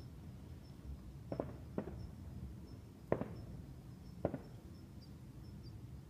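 Distant fireworks going off: four short faint bangs in quick succession, over a low background rumble. A faint high chirp, like an insect, repeats throughout.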